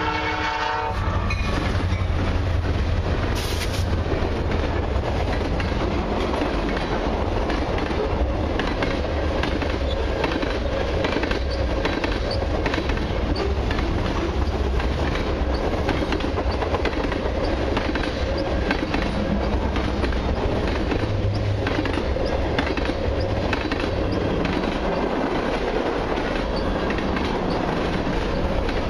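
A diesel freight train passing at a level crossing. The locomotive horn's blast cuts off about a second in, then the three lead diesel locomotives go by with a low engine rumble, followed by a string of freight cars with steady clickety-clack of wheels over the rail joints.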